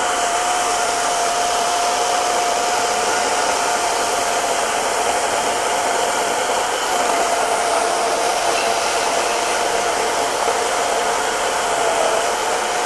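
EGO 56V brushless battery chainsaw running under load, its 16-inch chain cutting through a thick wet oak log. A steady high whine carries over a dense rasp of chain and chips, without a break.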